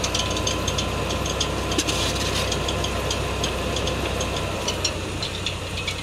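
Tractor diesel engine running steadily, turning a belt-driven tubewell pump that is not yet drawing water, with a fast light clicking rattle several times a second over the low engine hum.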